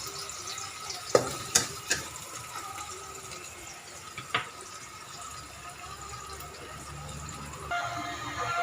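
Sliced onions, ginger and curry leaves sizzling steadily in hot oil in a pan as they are fried until browned. A utensil knocks sharply against the pan a few times, three of them within the first two seconds.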